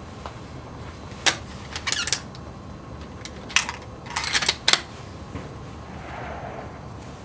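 Bolt-action rifle's bolt worked by hand: sharp metallic clicks and clacks in two quick clusters, about a second in and again around four seconds in.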